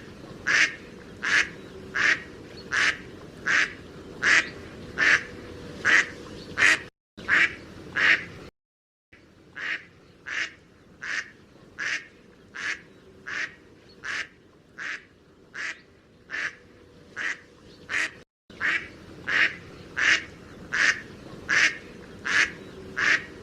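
Mallard duck quacking over and over in a steady, even series, about three quacks every two seconds, with a few brief cut-outs to silence.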